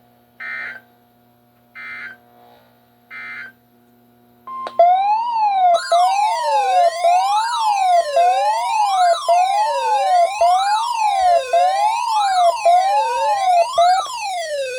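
Emergency Alert System tones: three short data bursts of the SAME header. About four seconds in, a loud alert begins: a steady high attention tone with a siren sweeping up and down a little more than once a second, marking the start of a new severe thunderstorm warning.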